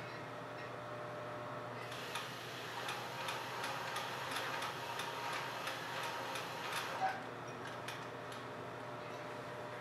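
Singer sewing machine stitching slowly through backpack fabric and zipper tape, a regular ticking of about two to three stitches a second that starts about two seconds in and stops near the end, over a steady low hum.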